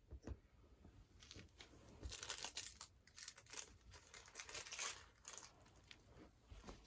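Faint crinkling and rustling in irregular bursts as things are handled and sorted, with a soft thump just after the start.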